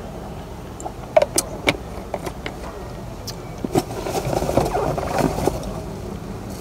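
Handling a plastic drink bottle and food packaging: a few sharp clicks and taps, then about two seconds of crinkling plastic rustle.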